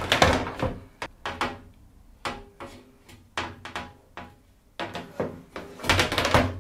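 Curved glass shower door panel being slid and worked into its metal frame profile: a series of knocks and clunks of glass against metal, louder at the start and again near the end.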